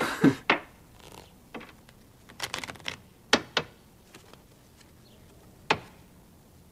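A deck of playing cards being handled in the hands: scattered sharp flicks and taps, with a short rustle at the very start.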